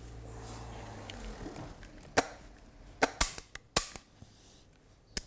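Sharp metallic clicks and snaps of an old Belgian 16-gauge side-by-side sidelock shotgun's break action being opened and closed by hand, a handful of them from about two seconds in. The action is being checked for play, which the gunsmith puts down to natural wear.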